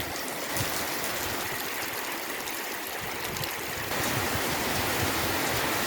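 Heavy rain pouring steadily, with water running, a little louder about four seconds in.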